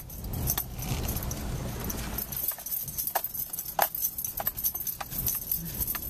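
Car rolling slowly over a cobblestone street, heard from inside the cabin: a low tyre rumble with scattered light clicks and jingling rattles.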